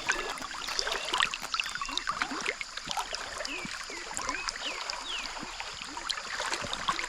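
River ambience: many short bird chirps and whistled calls overlapping, over trickling, gurgling water.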